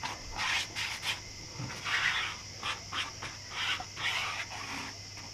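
Paintbrush spreading two-part marine epoxy over bare plywood: a string of short, irregular brushing swishes, with a faint steady hiss underneath.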